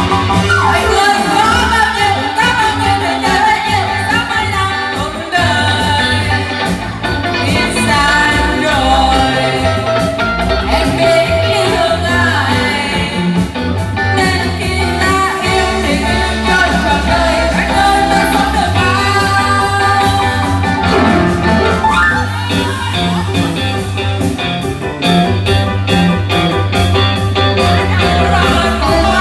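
Band music playing: a wavering lead melody over a steady bass line and drums.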